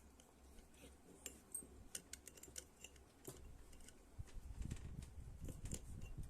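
Faint, irregular small clicks and ticks of a small screwdriver working a screw out of a Jio bullet camera's housing, with low handling rumble in the last couple of seconds.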